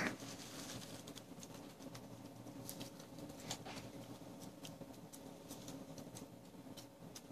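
Quiet room tone: a faint steady low hum with scattered, irregular small clicks and ticks.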